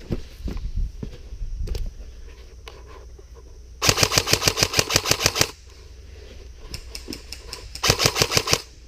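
Airsoft electric gun firing two rapid full-auto bursts. The first lasts about a second and a half, and a shorter one comes near the end.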